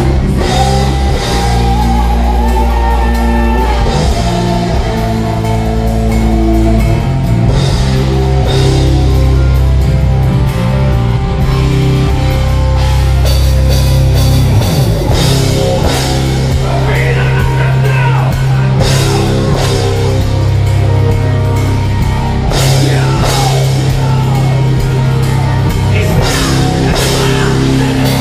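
Live heavy rock band playing loud, with electric guitars, bass and a drum kit; a voice sings over it in the second half.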